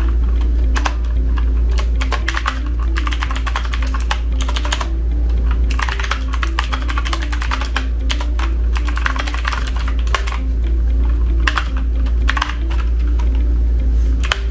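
Fast typing on a Marvo Scorpion KG965G gaming keyboard: a dense, uneven run of key clicks and clacks as the keys are tested.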